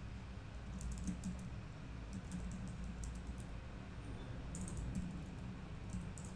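Computer keyboard typing a short sentence, keystrokes coming in several quick runs with short pauses between, over a steady low hum.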